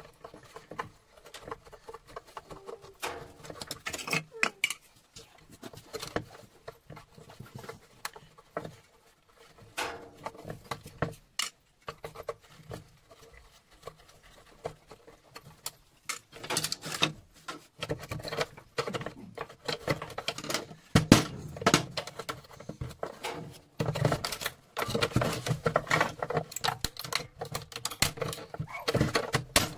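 Hammer blows and screwdriver prying cracking apart the plastic housing of a scrap appliance, with plastic pieces clattering on the bench. The knocks come irregularly, sparse at first and growing denser and louder about halfway through.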